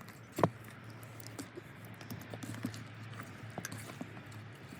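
Hands rubbing spice seasoning into a whole raw tilapia and its opened cavity: soft, scattered wet clicks and squelches, one louder about half a second in.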